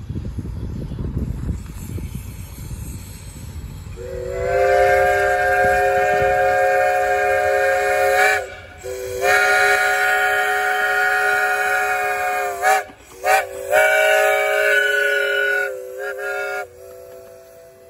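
Steam locomotive No. 2's chime whistle, several notes at once, blowing the grade-crossing signal: two long blasts, a short one and a long one, starting about four seconds in. A brief toot and a softer held tone follow near the end. Before the whistle, a low rumble.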